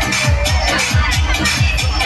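Loud amplified dance music with a fast, heavy drum beat, each low thud falling in pitch.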